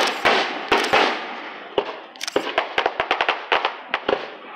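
Aerial fireworks shells bursting: a few heavy, echoing bangs, then a quick run of sharp crackling pops through the middle, and a few more bangs near the end.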